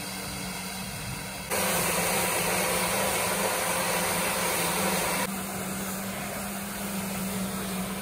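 Pressure washer with a large brush attachment washing cement-sand mortar residue off granite paving: a steady motor hum, with a louder rush of spray from about a second and a half in until about five seconds in.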